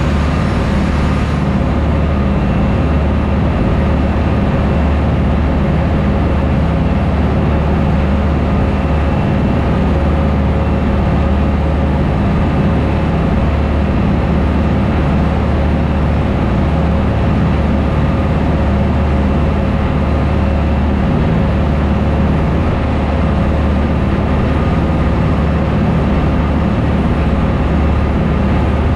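Small shuttle boat's engines droning steadily at cruising speed, with the wake churning and rushing past the stern.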